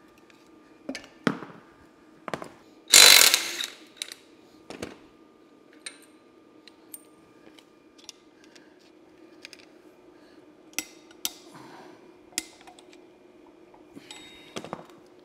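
Scattered metal clicks, taps and scrapes of hand tools working at an Allis-Chalmers D17 final-drive housing and its axle end cap, with one longer, louder scrape about three seconds in.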